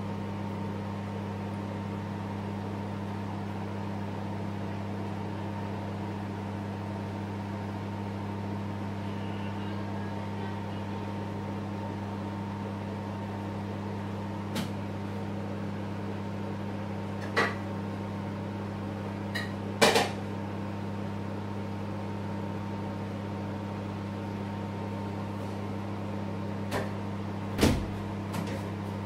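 A steady low electrical hum, like a running appliance, with a few short clicks and knocks over it; the loudest knock comes about twenty seconds in.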